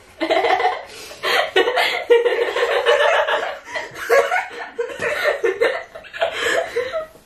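Two girls laughing together, in repeated fits of giggling with short breaks between.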